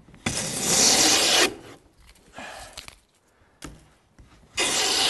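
Heavy wooden jack plane with its iron set coarse, cutting shavings from a board in two long strokes about a second each, roughly four seconds apart, with a fainter short stroke between.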